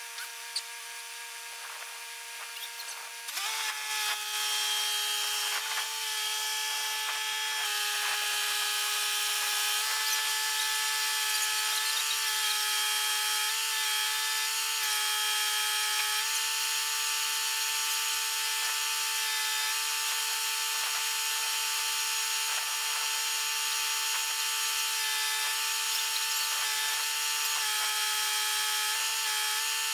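Crane hydraulics whining steadily while hoisting a scraper's heavy steel dump gate on a chain. The whine gets louder a few seconds in, and its pitch dips slightly a few times as the load changes.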